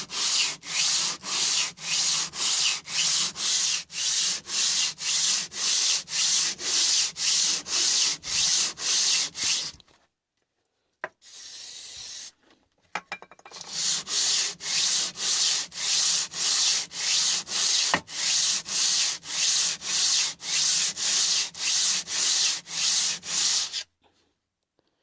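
Cast-iron sole of a No. 5 hand plane being rubbed back and forth on 120-grit abrasive laid flat, lapping the sole flat. The scraping goes in quick, even strokes, a little over two a second. It stops for about three seconds partway through, then resumes.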